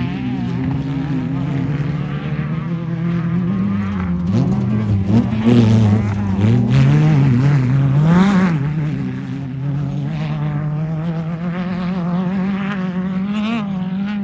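Off-road race car engine running hard, its pitch rising and falling as the throttle opens and closes. It is loudest in the middle, with a quick rise and fall in pitch about eight seconds in.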